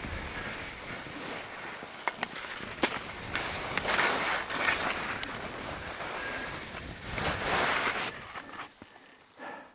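Skis hissing and scraping over chopped-up snow through downhill turns, swelling louder about four seconds in and again near eight seconds. A few sharp clicks come two to three seconds in.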